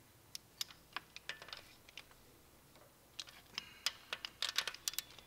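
Click-type torque wrench ratcheting in short strokes as it tightens the camshaft bearing cap bolts to 16 ft-lb: a few scattered clicks about a second in, then a quicker run of clicks from about three seconds in.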